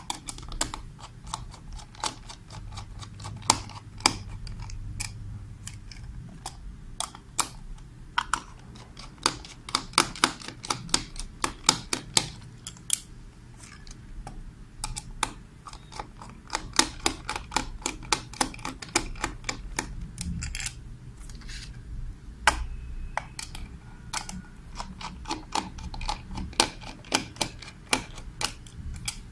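A small plastic receiver enclosure being handled: many irregular sharp clicks and taps of plastic being turned over and knocked, with a screwdriver at its screws near the end.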